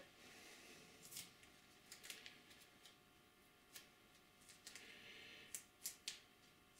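Near silence: room tone with a few faint, scattered small clicks.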